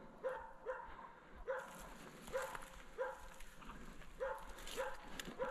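Moose-hunting dog barking steadily at bay, a regular run of short barks about one every half second or so: the sign that it is holding a moose that stands still.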